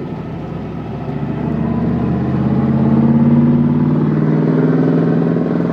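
Pickup truck engine pulling the truck along, heard from inside the cab, growing louder over the first three seconds or so and then holding steady.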